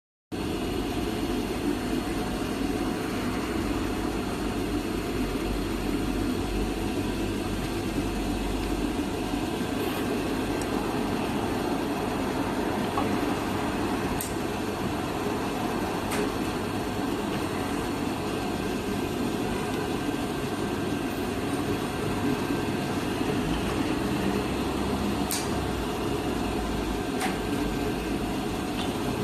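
Steady running noise of factory machinery, with a few sharp clicks, about four in all, spread over the second half.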